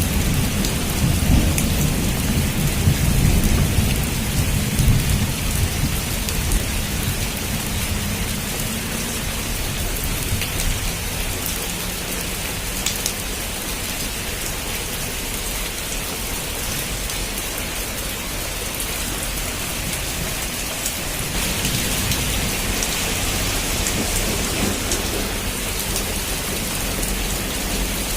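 Heavy rain falling steadily on a roof, with a dense hiss and scattered sharper drop ticks. A low rumble of thunder at the start fades away over the first few seconds.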